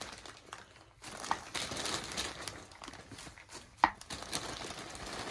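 Plastic bag crinkling as shredded cabbage coleslaw mix is shaken out of it into a bowl, with an irregular rustle of the falling slaw. A single sharp tap about four seconds in is the loudest moment.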